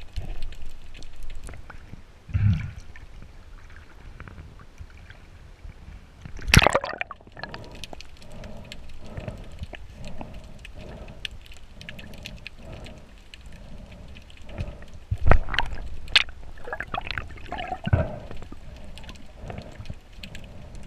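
Muffled underwater water movement heard through a submerged camera as a diver swims: a low wash and gurgle with a regular rhythmic swishing in the middle. A few sudden louder knocks or splashes stand out, one about a third of the way in and several near the end.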